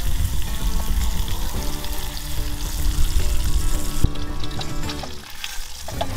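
Bacon sizzling as it fries in a Trangia cook pan, a dense spitting hiss. A sharp click comes about four seconds in, after which the sizzle is quieter.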